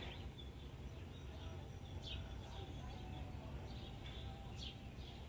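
Birds chirping now and then, a few short calls, over a steady low outdoor rumble as a thunderstorm approaches.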